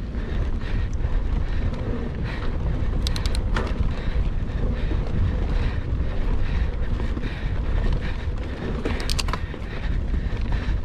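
Wind buffeting the microphone over the constant rattle and knock of a mountain bike riding over rough trail, with short runs of sharp clicks about three seconds in and again near nine seconds.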